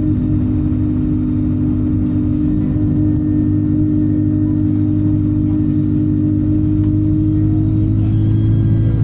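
Alexander Dennis Enviro 200 bus's diesel engine running steadily, with a thin turbocharger whine above the engine note; the pitch begins to rise slightly near the end.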